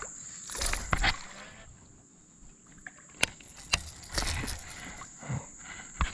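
Scattered knocks and handling noise of fishing gear against a kayak, with a few sharp clicks about a second in and again around three to four seconds in.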